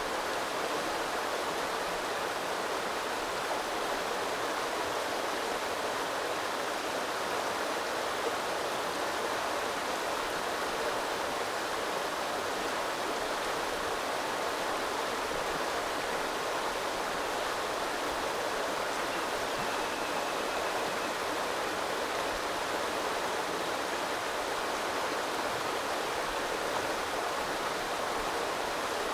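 Small river flowing: a steady, even rush of running water that does not change.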